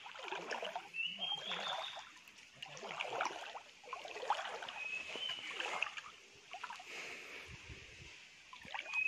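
Shallow creek water splashing and sloshing in irregular bursts about a second long. A few short high chirps sound over it.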